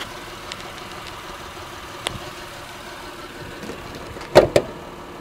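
The 2008 Acura MDX's 3.7-litre VTEC V6 idling steadily, with a small click about two seconds in and two sharp clacks close together near the end.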